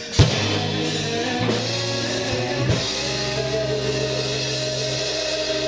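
Live band playing a gospel song, with a loud drum hit about a quarter second in, then drums and guitar under a long held chord.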